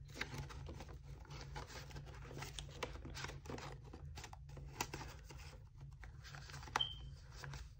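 Paper banknotes rustling and crinkling as a stack of cash is handled and slid into a clear plastic binder pocket, with a sharper click near the end.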